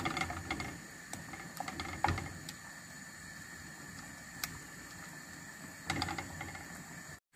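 Wooden spoon scraping and knocking against an aluminium frying pan while mashing cooked cauliflower florets into a tomato and pancetta sauce, with scattered taps, the loudest about two seconds in.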